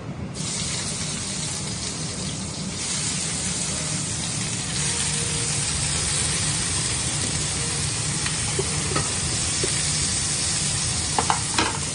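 Chopped bitter gourd, spinach and pumpkin hitting hot olive oil in a frying pan and sizzling. The sizzle starts about half a second in and gets louder about three seconds in. A few light clicks near the end.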